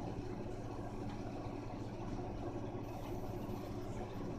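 A steady low mechanical hum, even in level throughout.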